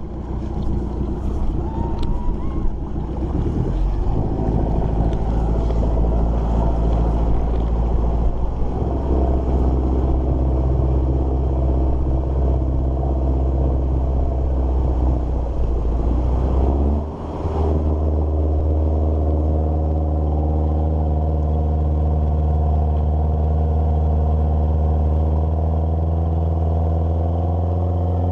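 An engine runs steadily. Around 17 seconds in it drops briefly, then settles back to a steady note at a different pitch, as when the throttle or gear changes. A few knocks are heard in the first few seconds.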